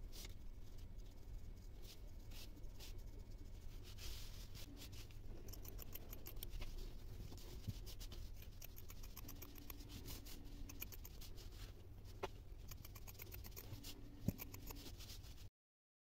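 Faint handling sounds of hands working on a jute-and-plastic craft lamp: scattered small clicks, taps and scratches over a low steady hum, with one sharper click near the end before the sound cuts off.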